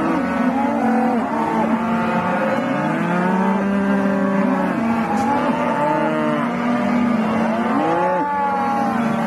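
Several cows mooing at once, their long overlapping calls rising and falling in pitch without a break.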